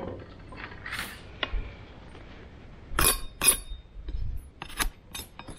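A Bear Grylls fixed-blade knife being handled and set against a wooden stick: a series of sharp metallic clinks and short scraping strokes, the loudest pair about three seconds in.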